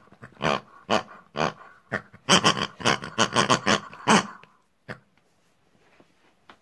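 A person voicing toy pig puppets with animal-like vocal noises instead of words: a quick string of short calls, busiest just past halfway, that stops about two-thirds of the way through.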